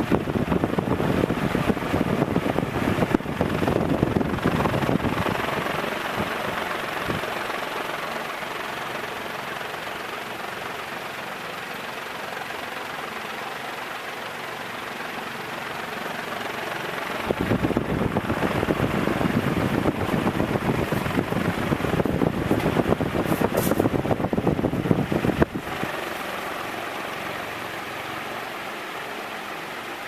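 Montgomery Ward Evergo Model E-3 industrial ceiling fan running at speed: a steady rush of air from the spinning blades over the motor's hum. The rush grows louder and rougher over the first few seconds, and again from a little past halfway until it drops off suddenly near the end.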